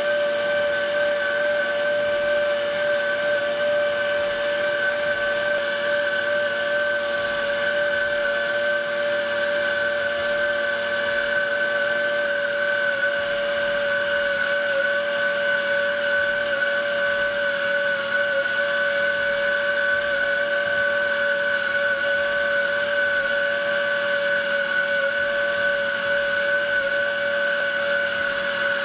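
Heavy-duty pneumatic air motor driving a TRIMAX clamshell lathe around a pipe, running with a steady high whine while the sever and bevel bits cut.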